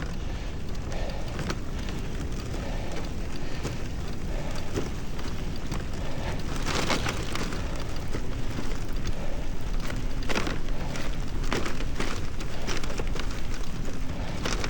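Wind rumbling on the camera's microphone and bike tyres rolling through slushy snow: a steady crackling hiss, somewhat louder in the second half, with a few sharper crackles.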